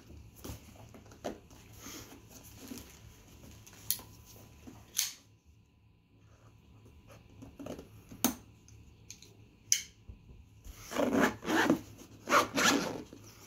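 Zipper of a GoPro Casey camera case being pulled, with handling clicks and rustling. The loudest zip strokes come in a cluster near the end.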